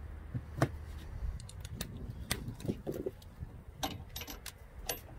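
Metal hand tools clinking, most likely an 18 mm wrench and a T40 Torx bit being handled at a car's front suspension. A handful of sharp, separate metallic clicks and taps come at irregular intervals.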